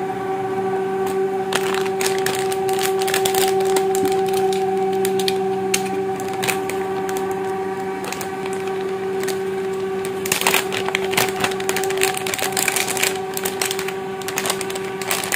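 Plastic packaging and an anti-static bag crinkling and rustling as they are handled and opened, with a busier stretch of crinkling about ten seconds in. A steady hum holds underneath.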